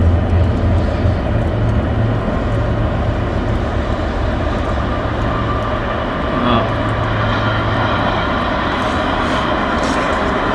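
Diesel train running by on the line: a loud, steady rumble with a low engine drone and scattered light clicks.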